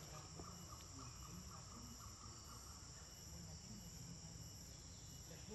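Faint, steady chorus of insects making a continuous high drone. For the first few seconds a faint note pulses about five times a second, all over a low rumble.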